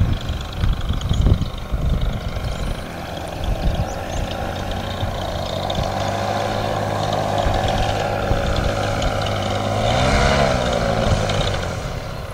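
Paramotor engine and propeller droning as the powered paraglider flies in close, growing louder, with its pitch bending as it passes about ten seconds in, then fading near the end. Wind buffets the microphone in the first couple of seconds.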